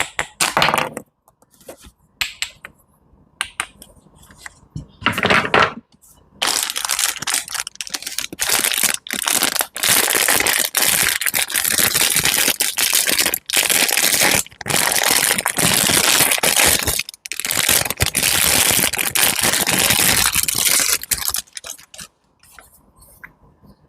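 Close-miked crushing and crinkling: a few sharp clicks and a short burst in the first six seconds, then a dense, nearly continuous crackling crunch for about fifteen seconds, broken by brief gaps, that stops about two seconds before the end.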